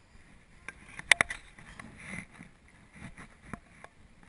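Contact noise from a body-worn camera moving over a rope cargo net: a quick cluster of three sharp knocks about a second in, then scattered light taps and rustling.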